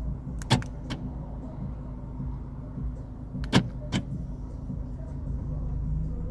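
Newly fitted universal power door lock actuators in a Honda Accord DX working the door locks: a quick cluster of sharp clunks about half a second in and another about three and a half seconds in, over a steady low hum.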